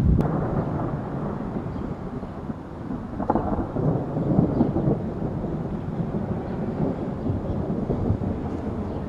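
Thunder rumbling long and low, loudest right at the start, with a second sharper peak about three seconds in before it rolls on.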